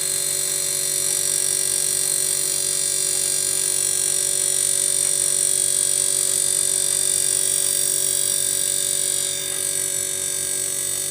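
LG 2.5 HP split inverter air conditioner's inverter compressor and outdoor fan motor running: a steady hum with several fixed tones and a high electrical whine, easing slightly about nine seconds in. The compressor is running again after its failed IPM was replaced.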